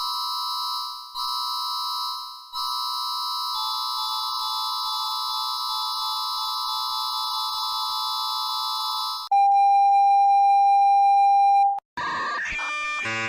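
Emergency alert attention tones. A steady chord of several tones holds for about nine seconds, dipping briefly twice near the start. A louder single steady tone follows for about two and a half seconds, and after a short break a new chiming tone pattern begins near the end.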